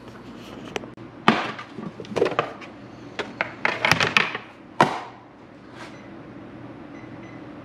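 Knocks and clatter of a plastic produce container being handled and set down on a kitchen counter, a run of sharp hits ending in one loud knock about five seconds in.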